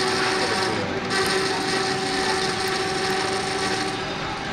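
Metal lathe running steadily, its motor and gear train giving a continuous mechanical whir with a few steady tones.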